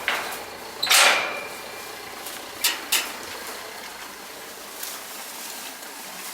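Shed gate being opened: a loud scraping clatter about a second in, then two sharp knocks and a few fainter clicks.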